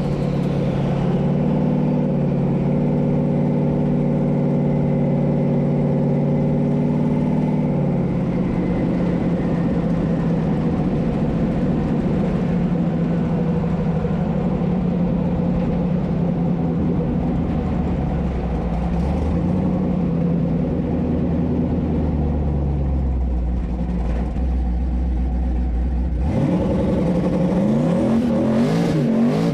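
A car engine running under way at a steady pitch for long stretches, with the revs climbing near the start and again a few seconds before the end.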